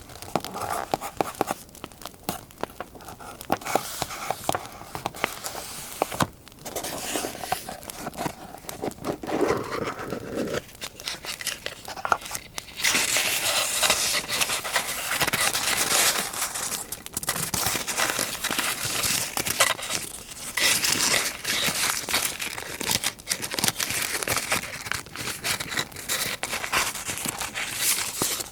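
Paper being crinkled, rustled and torn by hand while scrapbooking, with scattered small clicks. The crinkling grows louder and denser about halfway through.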